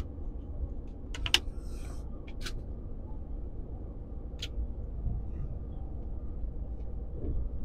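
Steady low rumble inside a vehicle's cab, with a few sharp clicks: two in quick succession about a second in, then single ones a little later and about halfway.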